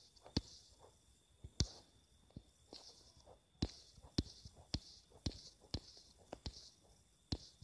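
A series of sharp, short clicks, irregular at first and then about two a second, over a faint steady high whine.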